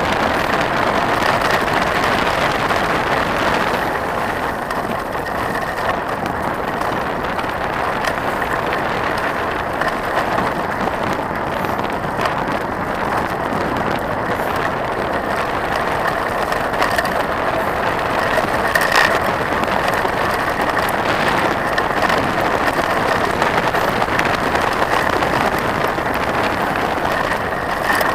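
Trek 4900 hardtail mountain bike rolling over a gravel road: a steady rush of tyres on loose stones with rattling from the bike. A few sharp clicks and knocks come through, mostly in the second half.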